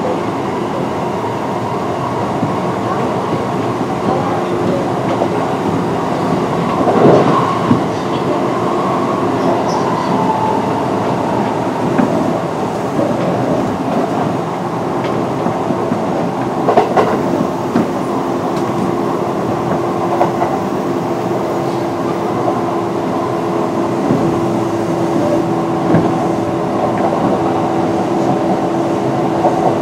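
Running noise of a Kintetsu 8600 series resistor-controlled electric train at speed: a steady rumble of wheels on rail, with a couple of louder knocks over rail joints. A steady hum comes in during the second half.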